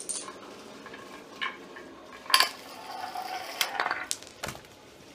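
Scattered clicks and knocks of a homemade chain-reaction machine, as a marble and a toy car run down wooden ramps and wooden blocks knock into one another on a concrete floor. The sharpest knock comes about halfway through.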